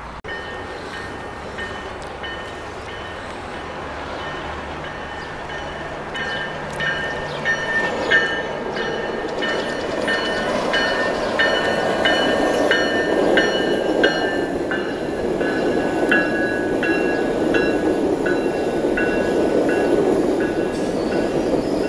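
GO Transit bilevel commuter train rolling past, its rumble growing louder as it nears. A high ringing tone repeats about every two-thirds of a second over the wheel noise.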